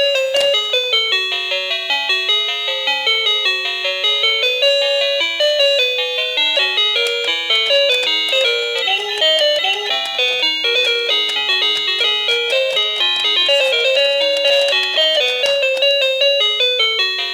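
Toy telephone playing its built-in electronic tune: a quick, continuous melody of short, bright beeping notes.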